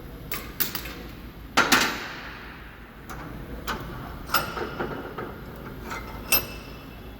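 Irregular sharp metallic clanks and knocks, like tools striking metal during work under a car, each ringing briefly. The loudest is a double clank about one and a half seconds in.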